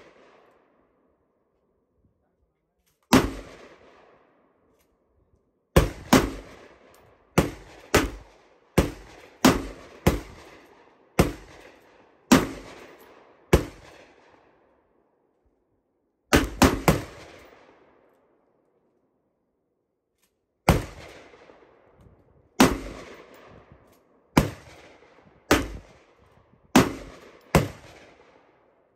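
Gunshots from an IWI US Tavor X95 short-barrelled rifle fired semi-automatically: about twenty single shots in several strings with pauses between. The shots come roughly a half to one second apart, a few in quick pairs, and each trails off in a ringing echo.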